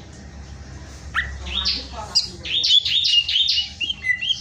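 Greater green leafbird (cucak ijo) singing: a rapid run of sweeping chirps and whistles that starts about a second in and ends in a few short, steady whistles.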